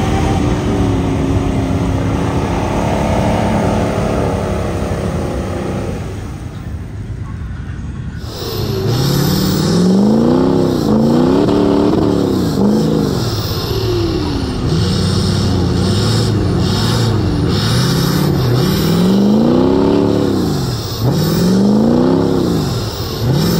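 Mud truck's engine running steadily, easing off about six seconds in. From about eight seconds in it is revved over and over, the pitch climbing and dropping again and again.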